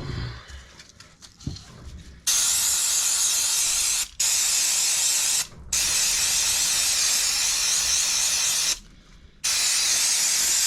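Aerosol carbon cleaner sprayed onto engine parts in four long hissing bursts, each lasting one to three seconds, with short stops between them. There is a brief clatter of parts at the very start.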